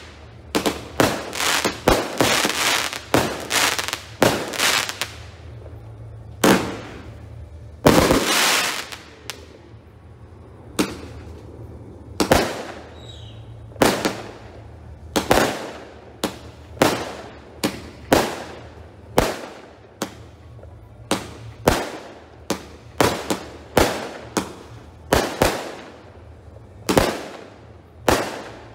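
F2 consumer fireworks going off: a string of sharp aerial bangs, each trailing away in an echo. A quick run of bangs comes first, then a lull of a few seconds, then bangs again at a steadier pace of about one a second.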